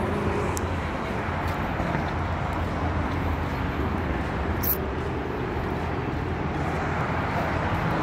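Steady street traffic noise: an even wash of road vehicles with a low hum underneath. One brief high tick comes near the middle.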